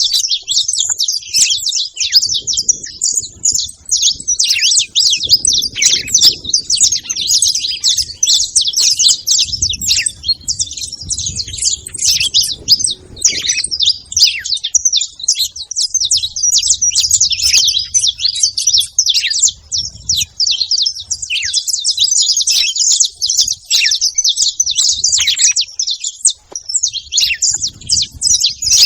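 A group of saffron finches chirping together in a dense, unbroken chatter of many overlapping high calls.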